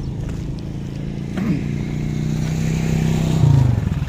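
Motorcycle engine running as it passes close by, growing louder to a peak about three and a half seconds in.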